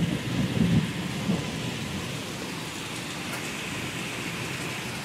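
Heavy downpour of rain mixed with hail, a steady hiss of water and ice striking the ground. A low rumble in the first second or so fades into the steady hiss.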